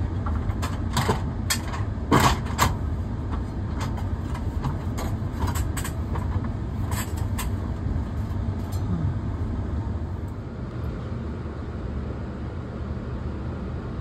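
Aluminium ladder clanking with a quick series of sharp knocks through the first half, over a steady low rumble that carries on alone afterwards.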